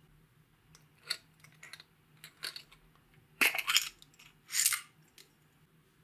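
Large, stiff holographic square flakes are tipped out of a small clear plastic cup and clatter into a glass baking dish, with light clicks of the cup being handled before. The two loudest rattles come about three and a half and four and a half seconds in.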